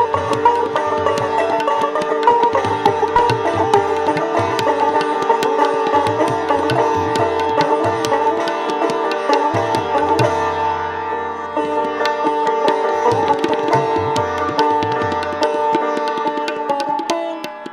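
Sitar and tabla playing together in Hindustani classical style: a fast plucked sitar melody with sustained ringing tones, over tabla strokes that include deep bass notes from the bass drum. The playing drops in loudness just before the end.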